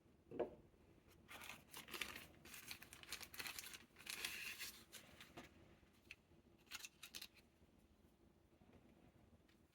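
Faint unboxing handling of packaging: a soft knock, then a few seconds of crinkling and rustling, and a few light clicks near the end.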